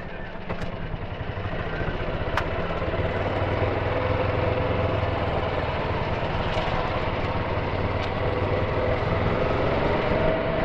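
Golf cart under way, picking up speed from a slow roll: a steady hum with rolling noise that grows louder over the first few seconds. A sharp click about two seconds in.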